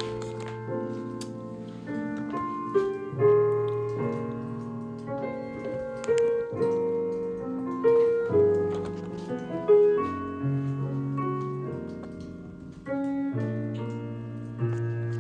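Solo piano music playing in the background, with sustained chords over a bass line that changes every second or two.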